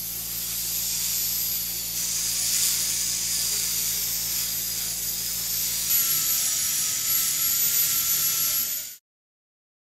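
Slow-speed dental contra-angle handpiece running with a white polishing cup against a front tooth: a steady high whine with hiss. The sound shifts about six seconds in and stops suddenly near the end.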